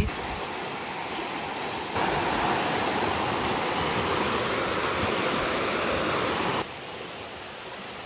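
Fast-flowing river rushing: a steady noise of water that jumps abruptly louder about two seconds in and drops abruptly quieter near the end.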